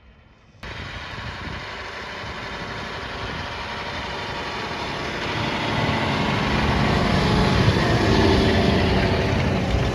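A John Deere 6250R tractor's engine running under load as it pulls a six-furrow plough, coming in suddenly about half a second in and growing steadily louder as it approaches, with a steady low hum.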